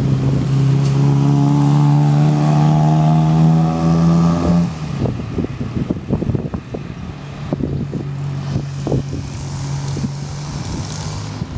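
Road traffic: a motor vehicle's engine running with a slowly rising pitch, which stops abruptly about four and a half seconds in. After it come a fainter engine hum and irregular buffets of wind against the microphone.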